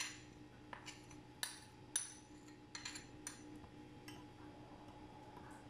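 Metal spoon clinking and scraping against ceramic bowls as cream is scraped into milk and stirred in: several light, irregular clinks over the first three or four seconds, fainter near the end.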